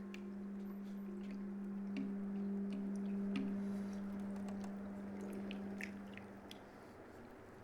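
A single low, steady note held by the viola and baritone saxophone duo in a contemporary concert piece, fading out about six to seven seconds in, with faint scattered clicks.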